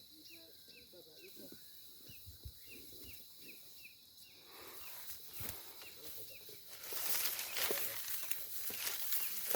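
Outdoor field ambience: a steady high insect drone and a short high call repeating about three times a second, with faint distant voices. About seven seconds in, a louder rustling noise takes over.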